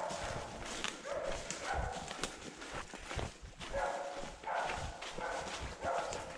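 Blood-tracking hound whining in short, repeated pitched cries, roughly one to two a second with gaps, over rustling movement.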